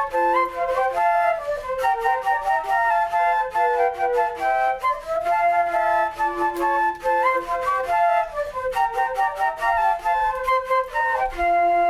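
Flute ensemble playing in several parts at once, in flowing runs and held notes, settling on a held chord near the end.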